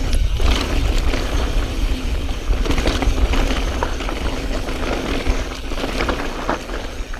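Mountain bike (2016 Specialized Stumpjumper S-Works 27.5) descending a loose, rocky trail: tyres crunching over rock, with scattered clicks and knocks from the bike and a steady low rumble of wind on the GoPro microphone.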